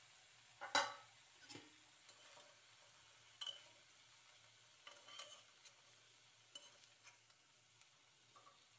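Whole tomatoes sizzling faintly in oil in a kadhai while a spatula turns them, scraping and knocking against the pan now and then; the loudest knock comes about a second in.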